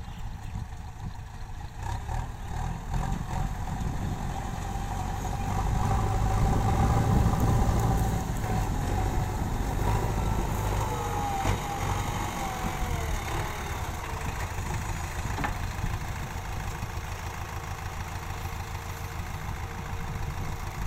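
JCB 3DX backhoe loader's diesel engine running, getting louder about five seconds in and easing back after eight seconds. Around the middle, a whine slides down in pitch over the engine.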